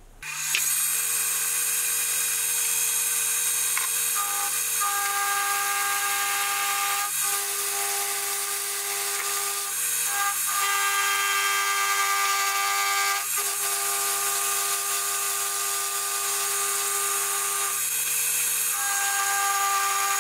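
Milling machine spindle running with an end mill cutting a slot into a metal blank: a steady motor hum and high hiss, with a pitched cutting whine that starts about four seconds in and breaks off briefly several times.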